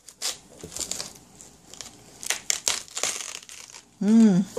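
A sharp kitchen knife crunching through a dense, tightly packed head of raw green cabbage, the crisp leaves cracking and snapping in irregular crackles; the head is so firm that the blade barely gets through. Near the end a person makes a brief voiced sound.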